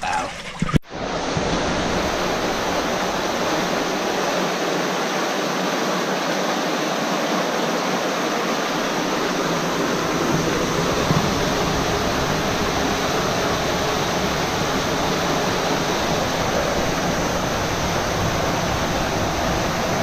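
Fast-flowing water rushing steadily and without a break, starting abruptly about a second in.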